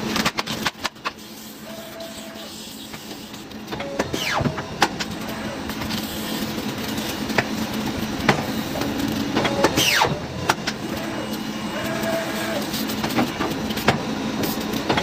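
Machinery running with a steady hum and irregular clicks and clatter, with two short squeals that fall in pitch, about four and ten seconds in.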